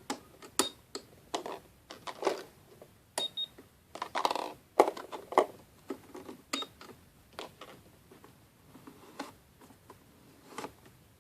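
Plastic toy cash register being handled, with scattered clicks and knocks. Its light scanner gives a short high beep about half a second in and another just after three seconds.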